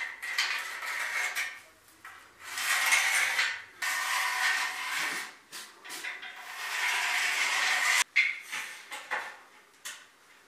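A hand tool scraping and rubbing on a concrete floor in four stretches of one to two seconds each, followed by a few short knocks near the end.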